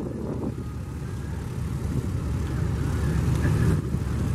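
The four Wright R-1820 Cyclone nine-cylinder radial engines of a Boeing B-17 Flying Fortress running at taxi power: a low, rough, steady rumble that grows gradually louder.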